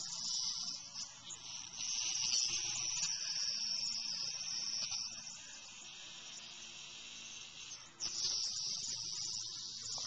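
A cicada gives a loud, harsh buzz in abrupt bursts: the distress buzz of a cicada caught by a cat. It weakens through the middle, then starts up loud again about eight seconds in.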